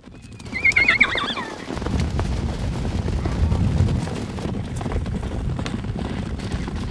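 A horse whinnies once near the start, a high wavering call that falls away, then the hooves of a galloping herd of horses run on as a steady, low rumble of many hoofbeats.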